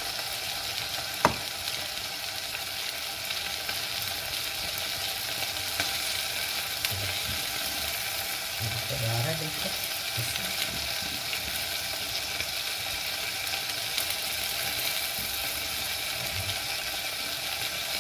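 Thick mushroom white sauce, just thickened with cornflour, simmering and bubbling in a frying pan on low heat with a steady hiss while a silicone spatula stirs it. A single sharp tap comes about a second in.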